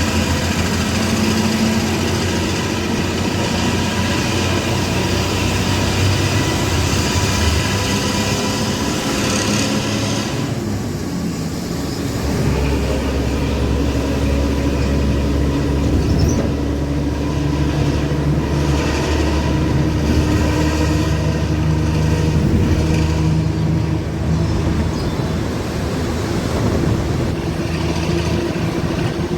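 Intercity bus diesel engine running through a loud aftermarket racing exhaust, with a deep growl ("ngorok"). About ten seconds in the higher hiss drops away and a deeper low rumble swells and holds for most of the rest.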